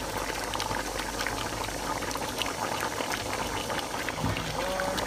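Pot of meat in tomato sauce bubbling on the stove, with many small irregular pops, its liquid nearly cooked down.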